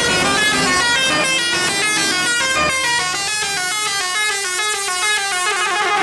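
Basuri telolet musical bus horn playing a fast tune, a rapid run of short notes that step up and down in pitch.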